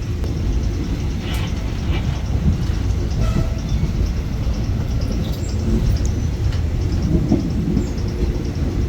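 Passenger train running, heard from inside the carriage: a steady low rumble with faint rattles and clicks.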